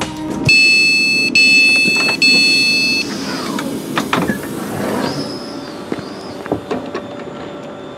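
Passenger train door alarm: three long beeps as the doors are released, then the sliding doors opening with a whirring glide and clunks.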